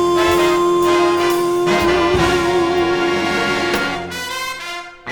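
Swing big band with trumpets and trombones holding the song's final chord, which wavers and then fades away near the end.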